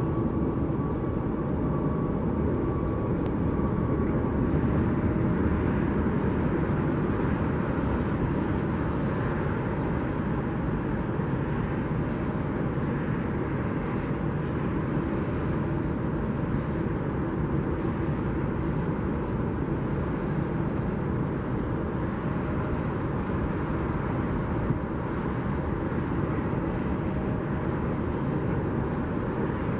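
Boeing 787-8 Dreamliner's jet engines rumbling steadily at a distance as it touches down and rolls out along the runway. A faint high whine fades out in the first few seconds.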